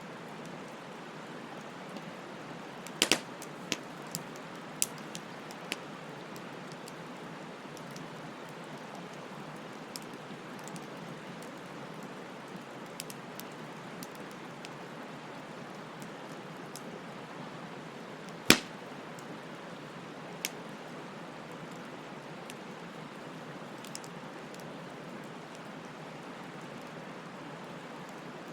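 Wood bonfire burning with a steady hiss and scattered sharp crackling pops. There is a cluster of pops a few seconds in, and the loudest single pop comes about two-thirds of the way through.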